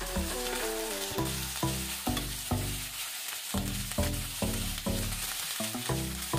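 Chicken drumsticks sizzling in hot oil in a frying pan, over background music with a regular beat of low notes.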